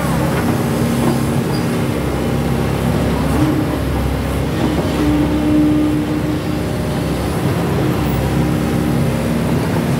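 A SANY hydraulic excavator's diesel engine running steadily under working load while the machine swings and moves its boom and arm, with a hum that briefly gets louder around the middle.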